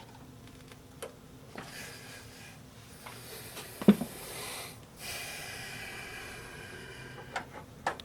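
Small plastic clicks and handling knocks as the power connector is worked off a graphics card, with one sharp click about four seconds in, the loudest sound. A person breathes out heavily close by, once about a second and a half in and again for a couple of seconds just after the click.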